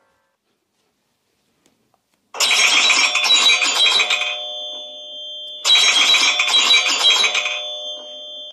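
An iPhone ringtone starting about two seconds in: a quick run of high, ringing notes whose tones hang on afterwards, then the same phrase again about three seconds later.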